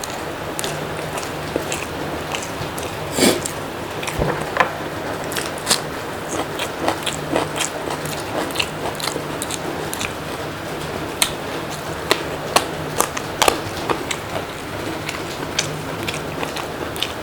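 Close-miked eating sounds: a person biting and chewing food, with irregular wet mouth clicks and smacks.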